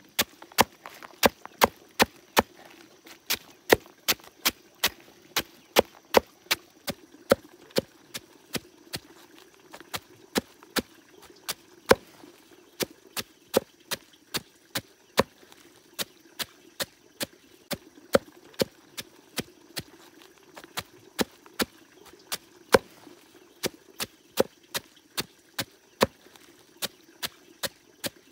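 Chopping with a blade: sharp, even strikes about two to three a second, kept up steadily.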